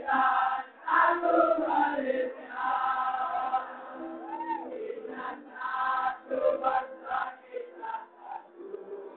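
A crowd of students singing together in unison, in phrases broken by short pauses.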